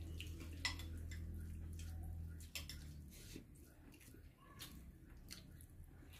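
A metal spoon clinks lightly and sparsely against the bowl and plate as curry is spooned onto rice, over a low steady hum that fades out about two and a half seconds in.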